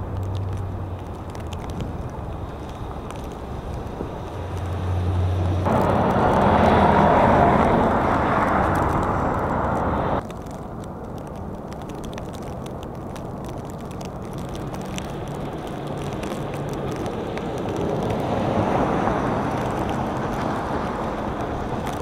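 Vehicles passing on a snow-covered city street: engine hum and tyre noise on the slushy road. A plow truck goes by loudest in the first half, the sound breaking off abruptly about ten seconds in, and then cars pass with a second, softer swell near the end.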